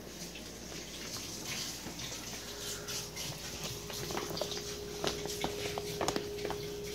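Plastic dog food bag crinkling and crackling as a pet shifts around inside it, with the crackles coming thicker about four seconds in.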